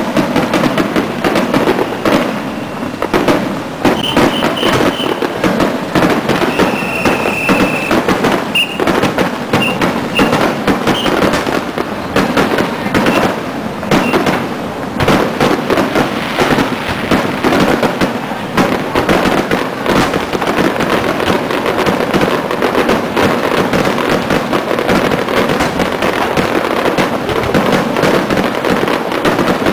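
Aerial fireworks in a dense, continuous barrage of rapid crackling and popping bursts. Between about 4 and 11 seconds in, a few short high whistling tones sound over the crackle.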